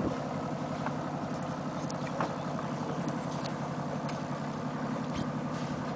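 A sailboat's small inboard diesel engine idling steadily with a fast, even knock.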